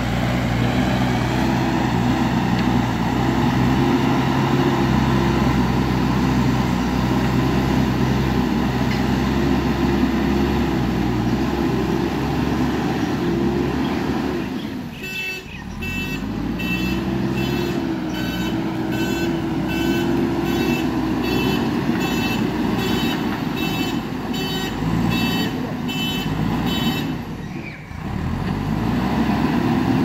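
JCB backhoe loader's diesel engine running as the machine works gravel, its pitch rising and falling. From about halfway in, a reversing alarm beeps steadily, roughly three beeps every two seconds, for about twelve seconds over the engine, then stops.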